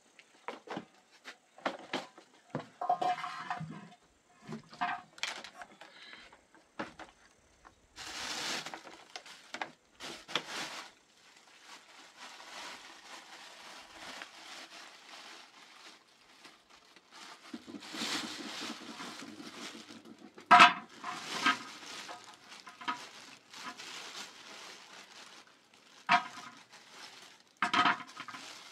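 Irregular clatter of objects being handled: sharp knocks and clinks like metal cookware and utensils, with stretches of scraping and rustling between them. The loudest knock comes about two-thirds of the way through, and a few more sharp clinks follow near the end.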